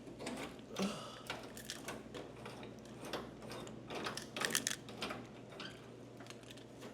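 Irregular mechanical clicks and rattles from a vending machine being handled, with no steady rhythm.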